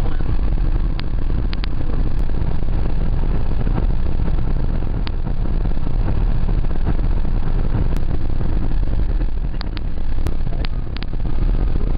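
Steady road and engine noise inside a car cabin while driving: a constant low rumble with a hiss above it, and a few faint sharp ticks scattered through it.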